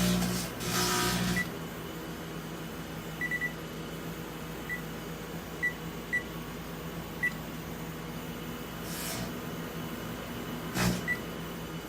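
Microwave oven running with a steady electrical hum, with copper wire and spark gaps as its load. Short high beep-like blips come now and then at uneven intervals, and brief clattering noises come at the start and near the end.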